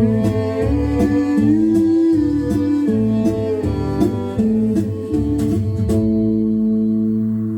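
Music: a guitar-led instrumental passage with bass under a moving melody, settling into a held chord about six seconds in that fades away near the end.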